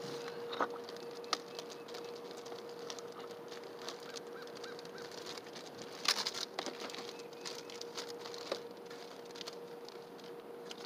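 Fishing tackle being handled while a lure is swapped: scattered light clicks and rustles, with a short cluster of sharper clicks about six seconds in, over a steady faint hum.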